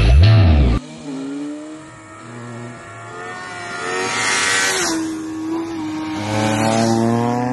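Music ends with a falling low boom in the first second, then motorcycle engines revving as the bikes ride past, the pitch climbing and dropping with gear changes. A rushing swell about four seconds in as a bike passes close, then another rising run of revs near the end.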